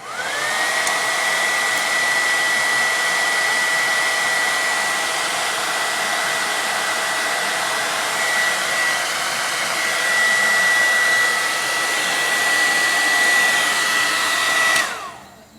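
Hair dryer switched on: its motor whine climbs quickly to a steady high pitch over a loud rush of blown air and holds there, then it is switched off shortly before the end and the whine winds down.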